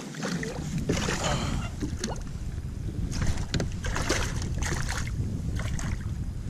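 Water slapping and splashing against a plastic fishing kayak's hull, over a low wind rumble on the microphone, with scattered short knocks and clicks from gear on the deck.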